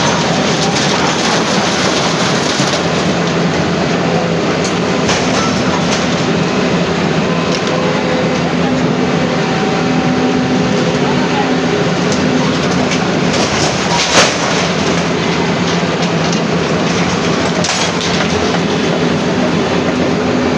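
Loud, steady street noise of running engines and crowd voices, with one sharp knock about fourteen seconds in.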